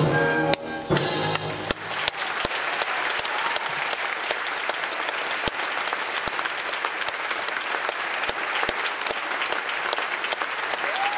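A ballet orchestra plays its closing chords, which end about a second and a half in, and a theatre audience breaks into steady applause.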